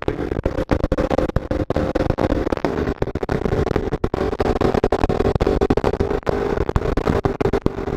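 Heavy wind blast on the microphone of a motorcycle at highway speed, choppy and buffeting, over the steady hum of the sport bike's engine.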